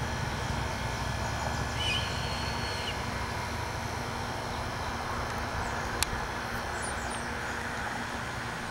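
Steady low outdoor rumble, with a short bird call about two seconds in, faint high chirps later, and a single click about six seconds in.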